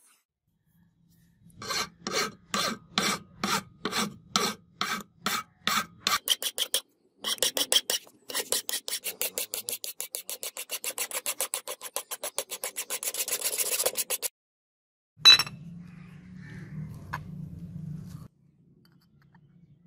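Hand file rasping across the weld bead on a metal jigsaw housing clamped in a bench vise. At first it goes in slow strokes, about two a second, then in quicker short strokes, about four or five a second, until about fourteen seconds in. Then there is a single sharp knock and a low hum for a few seconds.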